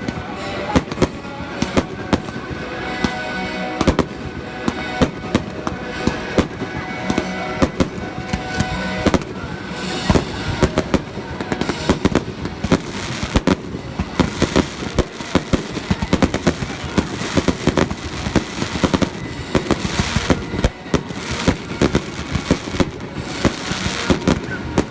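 Fireworks display: a rapid run of bangs and crackles from aerial shells bursting, with music playing behind them.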